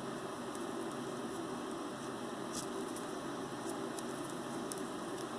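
Steady background hiss and hum, with a few faint light clicks of small jewelry pieces being handled.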